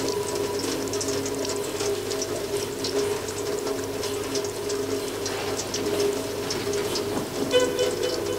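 Ambient soundtrack: a steady drone of several held low tones with dense, irregular ratchet-like clicking over it. Near the end a high ringing tone comes in.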